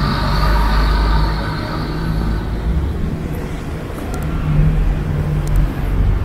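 Road traffic: a low engine hum from motor vehicles, with the hiss of a passing vehicle fading away over the first two seconds and the engine sound swelling again about halfway through.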